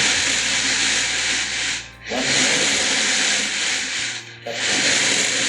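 Loud hissing noise in stretches of about two seconds, broken twice by brief gaps.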